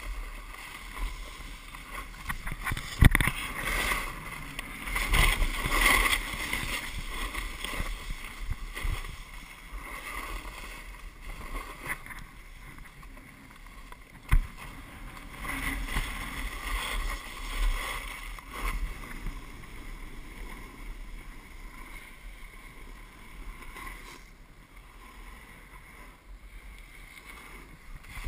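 Wind rushing over the camera's microphone and the hiss and scrape of edges carving packed snow during a fast downhill ride, rising and falling with the turns. There are sharp knocks about three seconds in and again about halfway.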